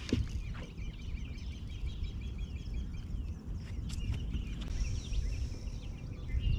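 Birds chirping and calling, many short quick notes over a steady low rumble, with a few sharp knocks near the start and about four seconds in.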